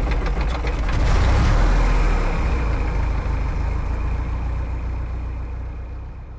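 Light aircraft piston engine and propeller running, a loud low rumble with rapid pulsing that slowly fades toward the end.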